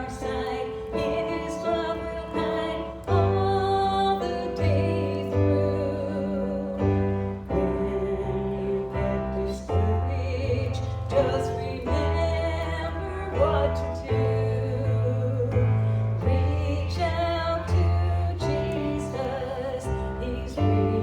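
A voice singing a slow song over keyboard and bass accompaniment, holding long notes with vibrato.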